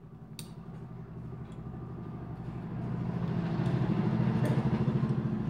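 A motor vehicle's engine going past, growing louder over a few seconds to its loudest near the end, then beginning to fade.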